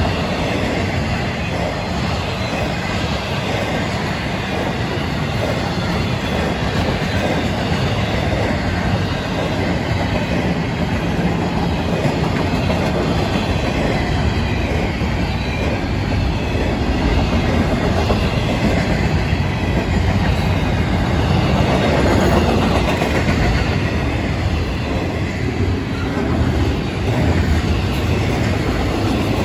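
Freight train of intermodal well cars and double-stack container cars rolling past: a steady rumble of steel wheels on the rails with clickety-clack over the rail joints.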